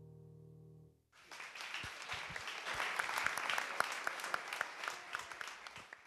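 A grand piano's final chord dies away, then audience applause breaks out about a second in, grows louder, and cuts off suddenly near the end.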